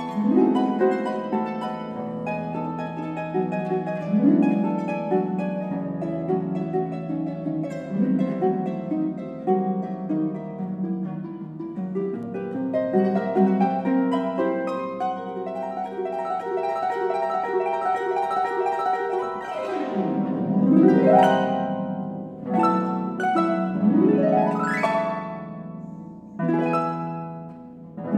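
Concert pedal harp played solo: flowing plucked notes and chords. About two-thirds of the way through come several sweeping glissandi down and up the strings, and a loud ringing chord is struck near the end.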